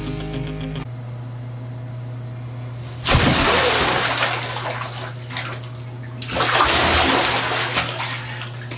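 Bathtub water splashing and sloshing as a person thrashes about lying in it, in two loud stretches: one starting suddenly about three seconds in, and another after about six seconds.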